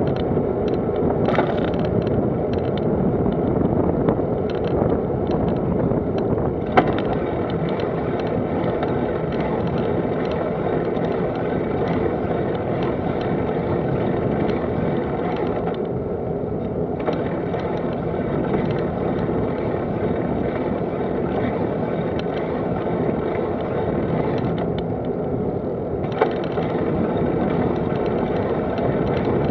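Steady tyre and road noise of a vehicle rolling along a rough, narrow tarmac lane, with frequent small rattles and clicks. A sharper knock comes about seven seconds in and another near the end.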